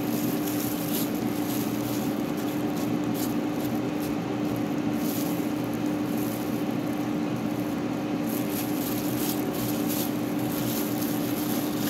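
Air fryer running, its fan giving a steady hum with one constant tone.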